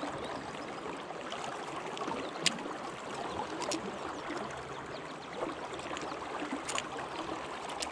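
River water flowing steadily, with about three short sharp clicks as pliers work the hooks out of a smallmouth bass.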